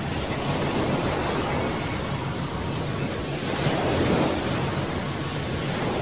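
Steady rush of wind and spray from a waterspout passing close by, with wind buffeting the microphone; it swells briefly about four seconds in.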